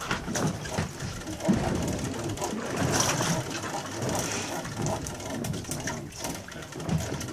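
Wind buffeting the microphone in an uneven low rumble, over the hiss of open sea water around a boat.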